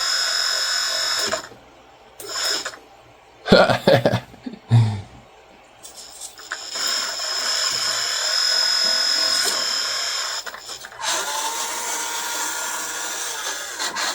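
Hydraulic pump of a 1/14 scale RC hydraulic excavator running with a steady high whine as the boom and arm are worked. It stops after about a second and a half and starts again about six seconds in, with its tone shifting near eleven seconds in. A few brief knocks sound in the gap.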